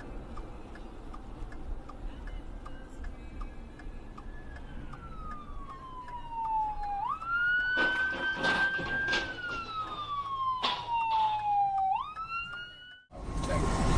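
Police car siren wailing, each cycle falling slowly in pitch and then jumping back up. About eight seconds in, a cluster of sharp impact noises that is the squad car crashing into traffic. Near the end the sound cuts to louder road noise.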